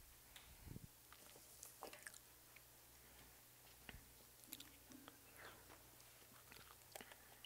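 Near silence: room tone with a few faint clicks and crinkles from a plastic water bottle being handed over and opened.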